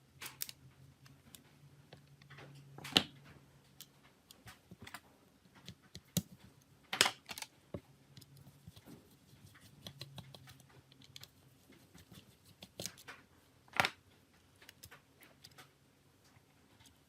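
Irregular small clicks and taps of hand tools and small phone parts being handled, with three louder sharp clicks spread through.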